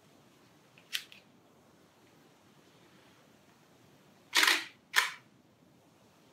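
Nikon D4 digital SLR shutter: a light click about a second in, then two loud shutter-and-mirror clacks about half a second apart near the end.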